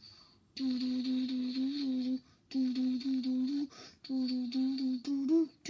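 A child humming a tune in about four short phrases with brief pauses between them, mostly on one low note with small steps, rising near the end.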